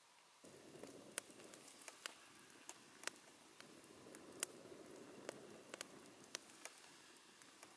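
Campfire crackling: irregular sharp pops and snaps over a low, steady rush of burning wood, starting about half a second in.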